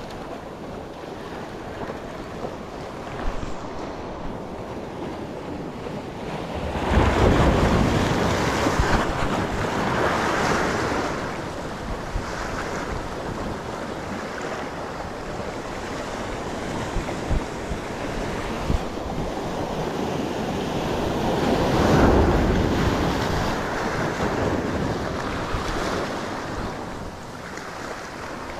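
Sea waves surging and breaking against rocks, with wind buffeting the microphone. The wash swells loudest twice, about a quarter of the way in and again about three-quarters of the way through.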